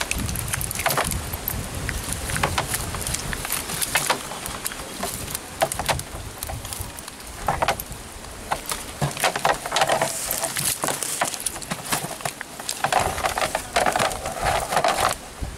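Freshly caught fish and a nylon fishing net being handled in a plastic drum lined with a plastic feed sack: a busy, irregular run of taps, clicks and crinkly rustles as fish and netting shift against the sack and the drum wall.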